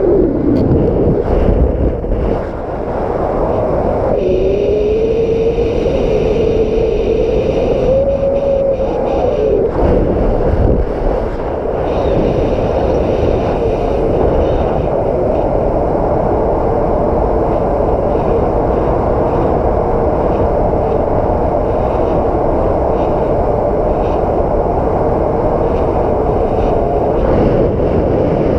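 Strong wind blowing hard over the microphone with a constant low rumble and a steady howling tone that dips and then rises in pitch about four to nine seconds in.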